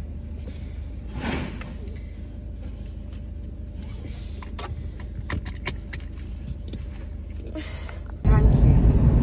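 Inside a stopped car: a low steady hum with scattered small clicks and rustles as things are handled. Near the end it switches abruptly to loud road and engine noise from the car driving at motorway speed.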